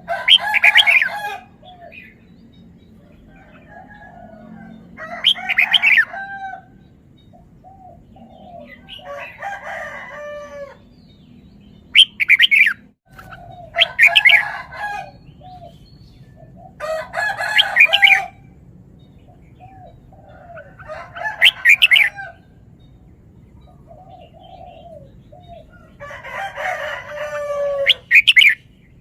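Red-whiskered bulbul singing: short, loud, warbled phrases repeated every few seconds, with softer short calls in between.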